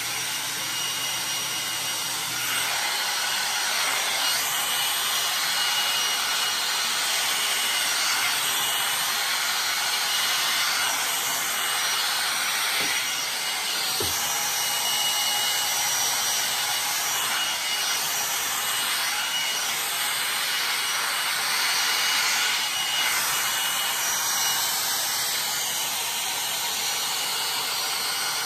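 IKOTE hot-air hair dryer brush running steadily: a constant rush of blown air with a faint high motor whine, as it is drawn through long hair.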